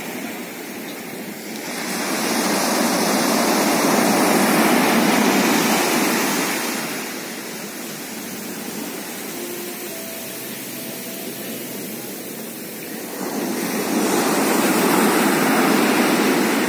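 Pacific Ocean surf breaking on the shore. A wave builds into a loud rush about two seconds in and fades after several seconds; a second wave breaks near the end.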